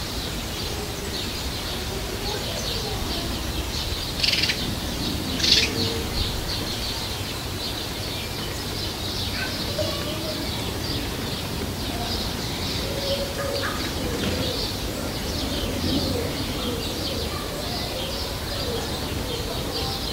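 Many small birds chirping without pause, with two louder, sharper calls about four and five and a half seconds in, over a steady low rumble.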